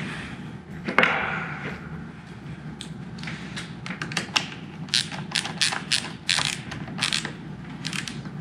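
Small hand ratchet clicking in quick runs as a bolt at a motorcycle's handlebar lever mount is screwed back in, with a single knock about a second in.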